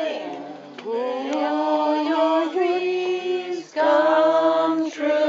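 Music with singing voices holding long, sustained notes over steady low notes.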